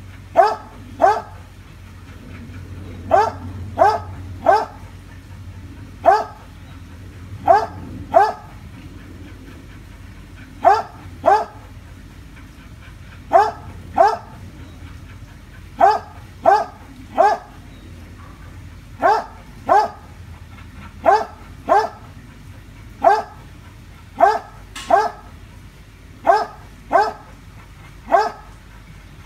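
A dog barking repeatedly at a monitor lizard, alarm barks in single shots and quick runs of two or three with short pauses between.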